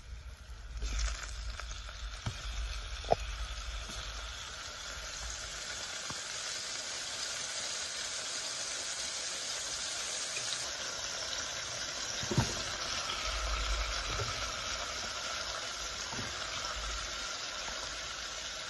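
Salt pork and salt beef frying in fat in a pan: a steady sizzle that starts about a second in, with a couple of faint clicks.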